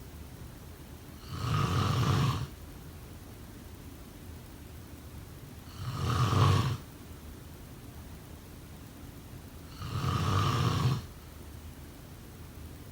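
A person snoring: three snores about four seconds apart, each lasting about a second.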